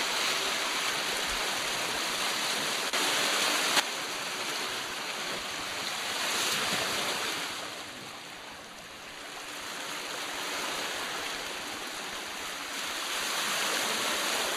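Water rushing along the hulls of a Searunner trimaran running fast downwind, mixed with wind noise, surging and easing as she rides over the waves. A sharp click about four seconds in.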